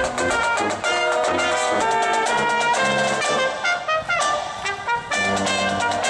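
A small brass band playing live: trumpets and a sousaphone holding melody notes over crisp snare drum beats.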